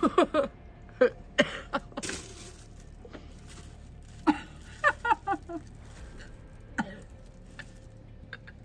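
A woman gagging and whimpering while trying to eat century egg: short moans falling in pitch, a breathy cough-like retch about two seconds in, then more whimpers between four and five seconds in.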